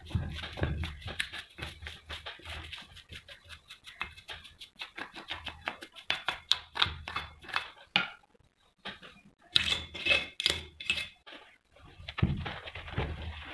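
Irregular scratching and clicking of a brush and small tool worked over a metal toothed pulley, with a short pause partway and a run of louder clicks just after it. Near the end, softer rubbing as the part is wiped with a cloth.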